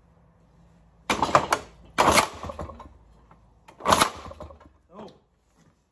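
ATCO lawnmower's Villiers two-stroke engine being kick-started: three times it fires for a fraction of a second in a quick run of sharp pops and then dies, with a fainter pop near the end. It catches but won't keep running, which the owner thinks points to the ignition timing.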